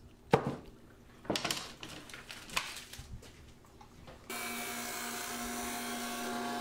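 A few sharp knocks and clatters of wood against the clamps and bench as the glued-up block is freed from its clamps and set down. Then, from about four seconds in, a Jet drum sander running: a steady hum with a hiss.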